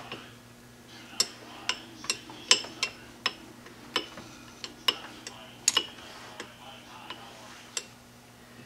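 A dozen or more sharp, irregularly spaced clicks and taps of hand work on the lathe tailstock and its offset adjusting screws, over a low steady hum.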